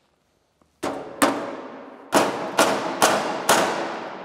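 A run of loud metallic bangs from the old arc welder's steel sheet-metal case, six sharp strikes over about three seconds, each ringing and fading away.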